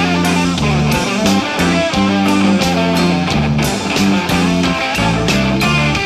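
Blues-rock band playing an instrumental passage with no singing: electric guitar over bass and drums, with drum hits at a steady beat.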